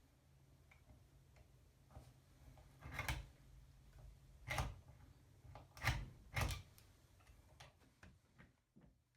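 Four sharp knocks among lighter clicks, like hard objects being set down or handled, over a low steady hum that stops near the end.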